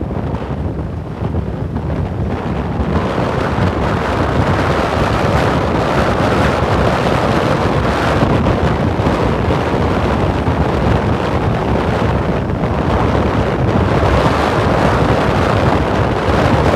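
Wind buffeting a phone microphone held at an open window of a car moving at road speed, mixed with the car's road noise. A loud, steady rush with no let-up that grows a little stronger about three seconds in.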